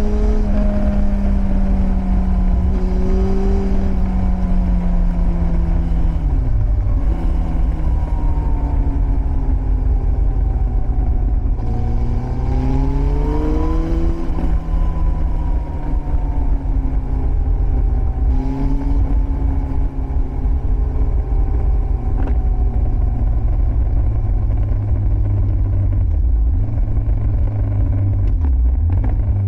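Yamaha 1000 Fazer's carbureted inline four through a Scorpion exhaust, under way on the road. The engine note sinks slowly as the revs fall, dips briefly about seven seconds in, and climbs in revs about twelve seconds in and again near eighteen. It settles to a low note near the end, with a steady low rumble underneath.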